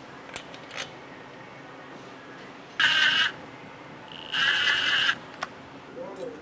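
Small power tool's motor whirring in two short bursts, the second longer, with a few light tool clicks between them.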